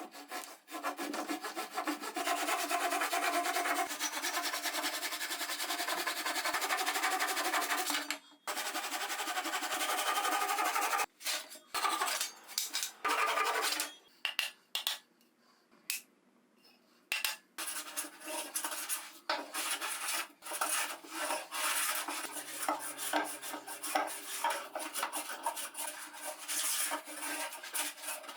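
A hand tool scraping across Douglas fir 2x4 stock in rapid rubbing strokes, with a few short breaks and a pause of a few seconds midway.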